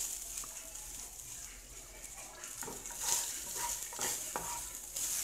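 Crumbled chorizo sizzling in a frying pan, with a spatula scraping and stirring it, the scrapes louder about three and four seconds in.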